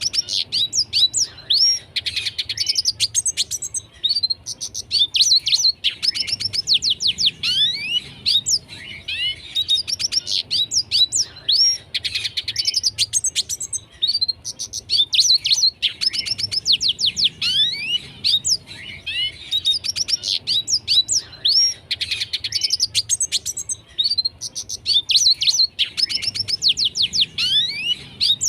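Red siskin in full song: a fast, continuous twittering of high chirps, quick falling notes and buzzy trills, delivered in phrases of a few seconds with short pauses between them.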